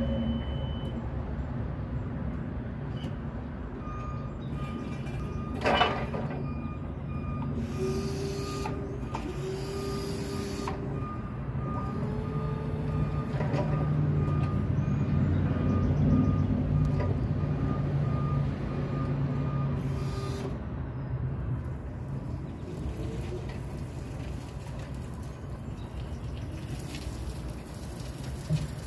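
2015 CAT EC25N2 electric forklift backing up, its reverse alarm giving a steady run of beeps from about four seconds in until about twenty seconds, over the low noise of the machine. There is one sharp knock about six seconds in.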